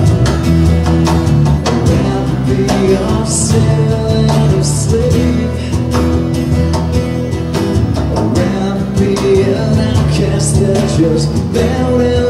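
Live acoustic rock band playing: strummed acoustic guitars and an electric guitar over a cajón beat.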